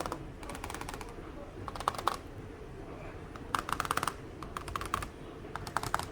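ThinkPad laptop keyboard being typed on in about five short bursts of quick key clicks.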